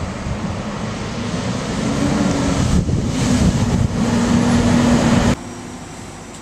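Diesel locomotive engine running loudly with wind on the microphone, its note rising slightly and then holding steady before it cuts off suddenly about five seconds in.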